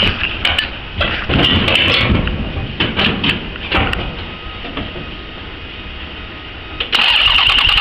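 Toyota Camry V6 engine in a buggy, started for the first time after standing a month: a few seconds of irregular clatter, then the engine catches about seven seconds in and runs loud and steady.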